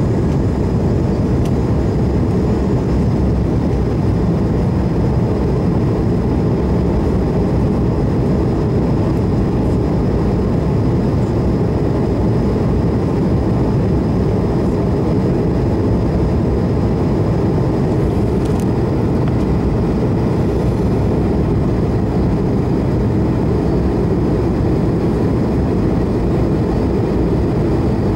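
Steady cabin noise of an Airbus A220-300 in flight, heard from a window seat beside the engine. It is the low rumble of the Pratt & Whitney PW1500G geared turbofan and the rush of air, with a faint steady high whine over it.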